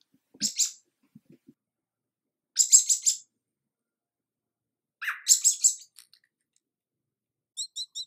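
Fledgling American robin begging: three bursts of rapid, high-pitched chirping a couple of seconds apart, then a few short high peeps near the end.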